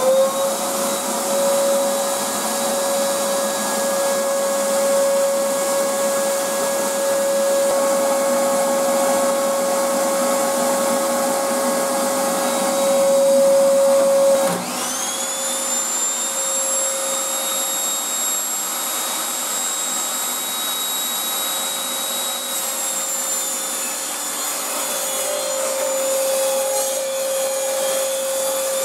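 A Ridgid shop vacuum switches on, spins up and runs steadily as dust extraction for a table saw. About halfway through, the Evolution table saw's motor starts, spinning up quickly to a high whine, and runs idle alongside the vacuum without cutting.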